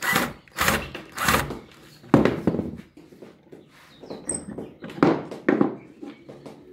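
A 12-volt cordless drill driving a screw into the wooden frame in three short bursts, then knocks and thuds as wooden parts are handled. The loudest knock comes about two seconds in and two more come about five seconds in.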